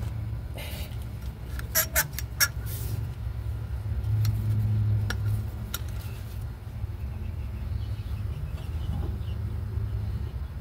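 A few sharp metallic clicks and clinks of brake parts and tools being handled, about two seconds in, over a steady low rumble.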